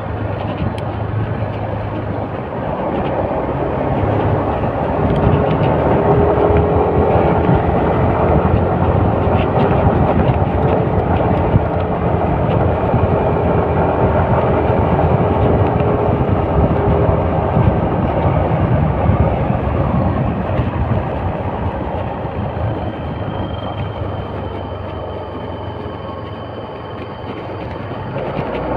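Motorcycle engine running with road and wind noise while riding. It grows louder a few seconds in and eases off again towards the end.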